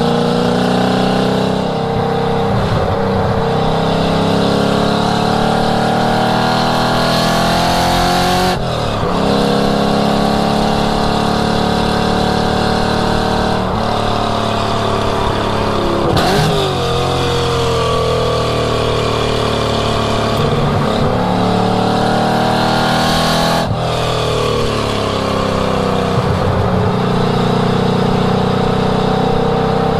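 1967 Ford Mustang's V8 at full throttle on track, climbing in pitch under load and dropping sharply three times as the gears change.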